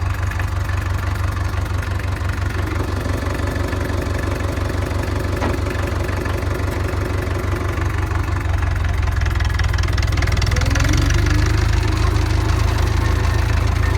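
Massey Ferguson 130 tractor's diesel engine running steadily, then picking up a little about ten seconds in.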